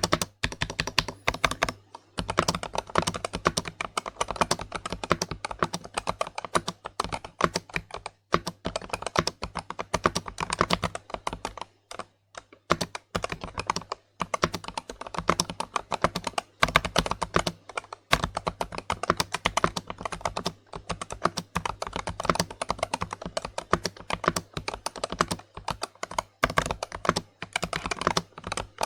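Continuous fast typing on an Ajazz AK820 Max HE mechanical keyboard with e-Sport magnetic Hall-effect switches: rapid key clacks with a few brief pauses.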